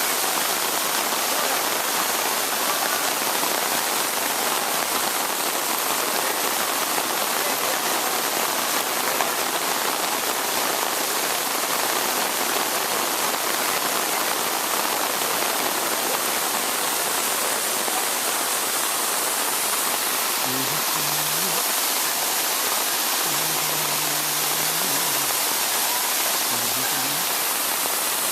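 Steady, unbroken rush of water, the even hiss of heavy rain and falling water.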